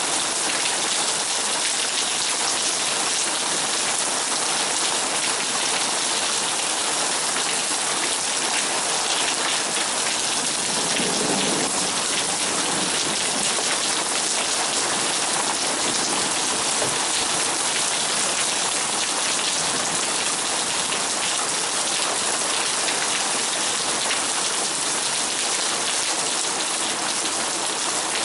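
Torrential rain pouring down steadily onto hard surfaces, an even hiss of heavy rainfall.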